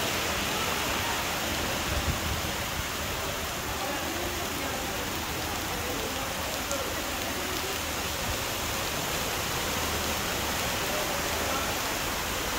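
Steady rush of floodwater pouring through a flooded street.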